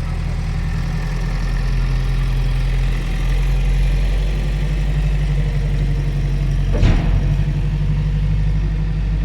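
A machine's engine running steadily at a low idle, with one sharp knock about seven seconds in.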